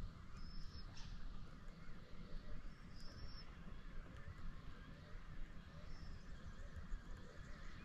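Faint distant birds calling over a steady low rumble on the microphone.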